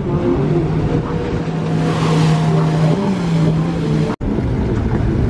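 Motorboat engine running at a steady pitch over rushing water and wind noise on the microphone. The sound cuts out for an instant about four seconds in.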